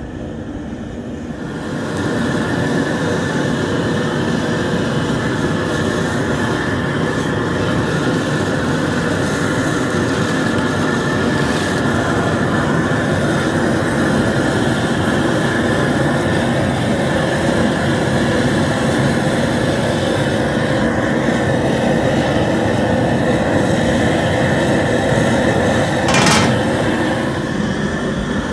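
Propane jet burner under a crawfish boil pot, running with a steady loud rush that sets in about two seconds in. One short sharp knock near the end.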